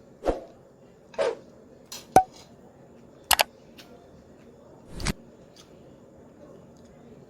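A woman hiccuping after eating hot green chillies: about five short, abrupt hiccups at uneven intervals over the first five seconds.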